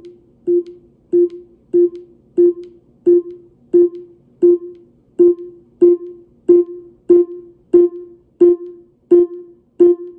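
Amazon Echo Dot smart speaker sounding its short volume-change tone again and again, about one and a half times a second, as its volume-up button is pressed repeatedly. The tones grow louder over the first few seconds as the volume climbs, then hold, ending loud.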